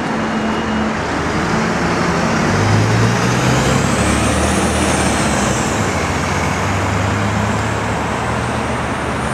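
Articulated city bus passing with its engine running, over steady street traffic. The engine note grows louder about three seconds in, and a faint high whine rises and falls midway.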